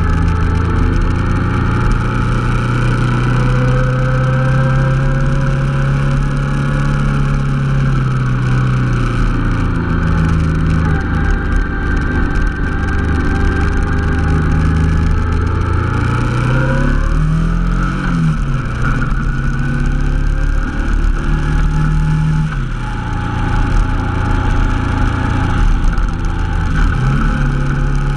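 Honda NT700V Deauville's 680 cc V-twin engine running under way. The engine note dips and climbs again several times.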